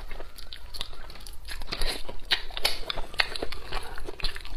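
Close-miked mouth sounds of a person eating braised fish: wet chewing and lip smacking, with irregular sharp clicks several times a second.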